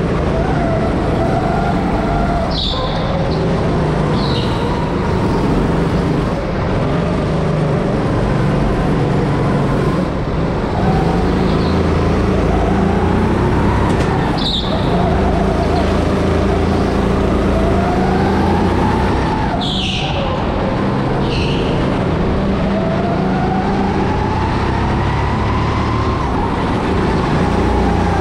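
Go-kart heard from onboard as it laps an indoor track, its motor rising and falling in pitch with speed, with several short tyre squeals through the corners.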